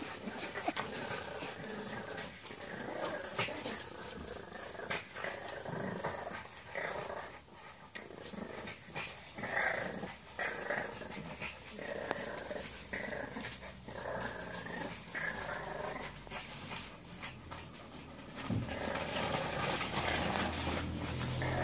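French bulldog and her puppies play-growling in short, irregular bursts as they tussle. A low rumble comes in near the end.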